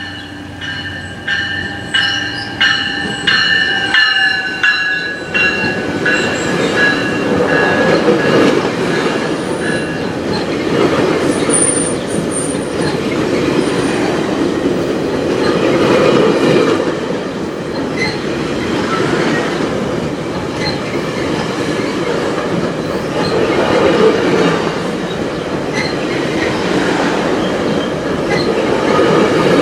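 GO Transit commuter train passing through a station at speed. Several high, steady squealing tones ride over quick regular wheel clicks for about the first five seconds. Then comes a loud, steady rumble of the bilevel coaches going by, with wheel clicks over the rail joints that swell and fade every few seconds.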